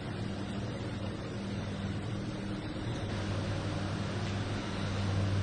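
Steady low machine hum under an even hiss.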